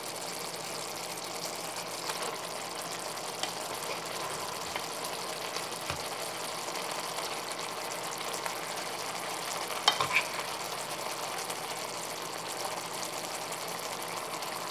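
Tofu, carrots and peppers in sauce sizzling steadily in a wok on the stove. There is a brief, sharper clatter about ten seconds in.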